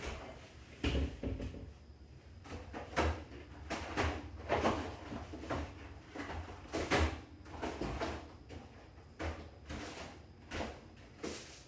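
A series of irregular knocks and clatters, roughly one a second, like things being handled and drawers or cupboard doors being moved.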